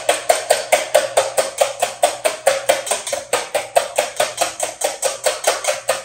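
Wire balloon whisk beating whole eggs in a stainless steel bowl: an even, rapid clatter of the wires against the bowl, about six strokes a second. The eggs are only being loosened lightly, not whipped to a foam.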